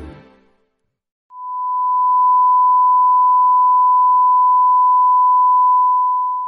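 A song fades out right at the start; after about a second of silence, a steady, unchanging test tone comes in and holds for about five seconds: the reference tone that goes with colour bars (bars and tone).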